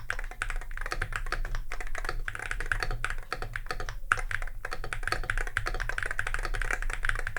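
Fast, continuous typing on an Akko MOD007 HE keyboard with magnetic Hall-effect switches: a dense run of keystroke clacks with no pauses. The microphone is not placed over the keyboard, so the sound comes through somewhat distorted.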